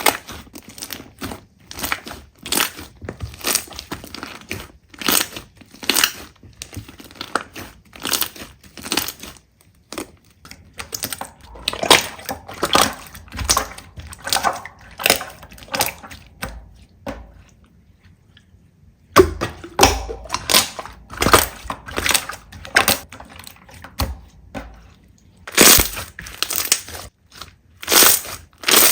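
Slime being pressed, poked and squeezed by hand, making quick runs of crackles and crunching pops. The sound stops for about two seconds past the middle.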